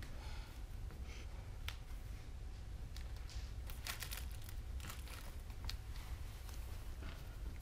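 Quiet theatre room tone: a steady low hum with scattered faint clicks and brief rustles, busiest about four seconds in.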